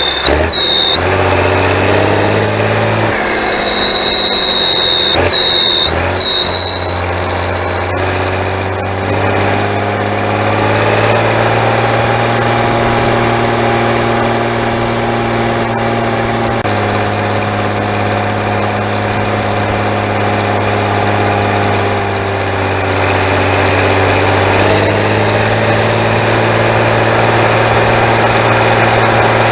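David Brown 1690 Turbo tractor's turbocharged diesel engine running steadily, with a high turbocharger whistle over the engine note. The whistle glides up and down several times as the revs change.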